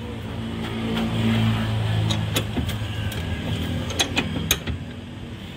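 Socket ratchet tightening the nut of a steering drag link, with a few sharp metal clicks that are loudest about four seconds in, over a steady engine hum.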